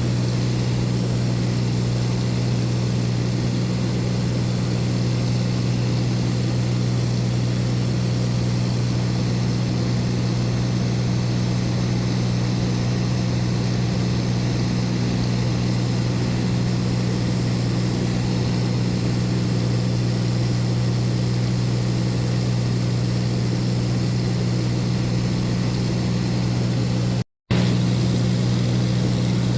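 Steady drone of a light aircraft's propeller engine in flight. It cuts out for a moment near the end, then carries on unchanged.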